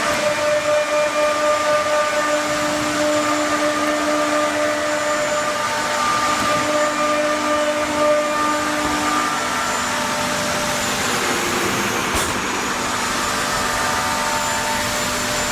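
A CNC wood router's high-speed spindle running as it cuts wood board: a steady whine over the noise of cutting, its pitch shifting a few times, with a brief click about twelve seconds in.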